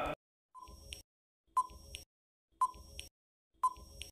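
Quiz countdown timer sound effect: a short beep-tick repeats about once a second, four times, with silence in between.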